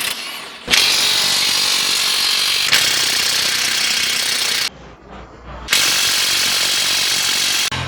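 A hand-held power tool hammering rapidly in two long bursts, about four seconds and then two seconds, each starting and stopping abruptly, with a short pause between.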